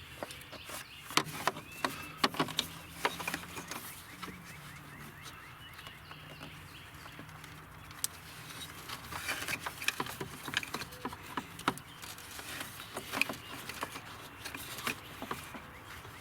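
Scattered clicks and knocks of hard plastic parts being handled as a car's electric cooling fan module is worked loose from its shroud by hand. The knocks come in bunches, about a second in and again from about nine seconds in.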